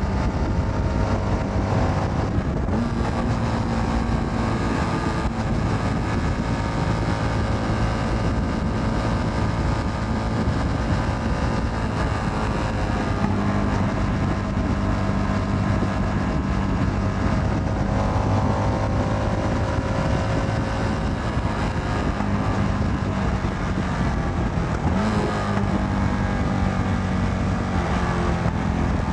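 Motorcycle engine running while riding, heard from the rider's helmet; the engine speed rises and falls gently a few times.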